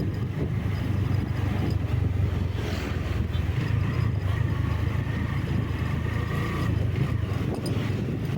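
A vehicle on the move: a steady low rumble of engine and road noise under a hiss of air. A faint higher whine joins for a few seconds in the middle.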